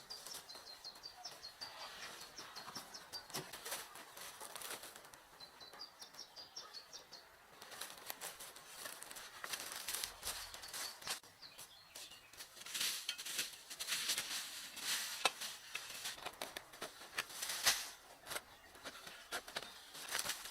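A small bird sings two runs of quick, high repeated notes in the first third. Irregular rustling, crackling and clicking runs throughout and grows louder and denser in the second half.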